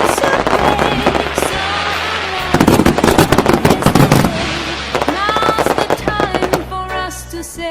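New Year fireworks and firecrackers going off in rapid, overlapping cracks and pops, densest and loudest from about two and a half seconds in.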